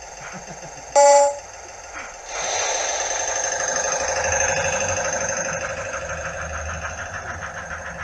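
A 16mm-scale diesel-outline model locomotive's sound unit gives one short horn toot about a second in. From about two seconds its simulated diesel engine revs up with a throbbing beat as the train pulls away, then slowly fades.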